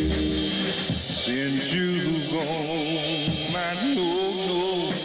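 R&B single playing: a melody line with strong vibrato over a band backing.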